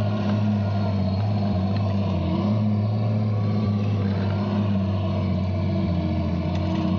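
1:6 scale radio-controlled King Tiger model tank driving through snow, giving a steady engine-like drone that shifts slightly in pitch a few times.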